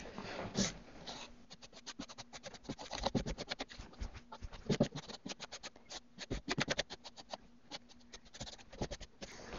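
Paintbrush bristles stroking paint onto a wooden cabinet door: faint, quick scratchy strokes, many a second, in runs with short breaks.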